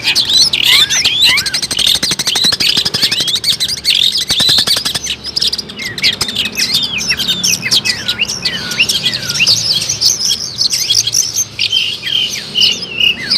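Long-tailed shrike (cendet) singing a fast, varied chattering song. In the first few seconds it gives a rapid buzzing rattle, then a quick run of high chirps and whistles that slide up and down.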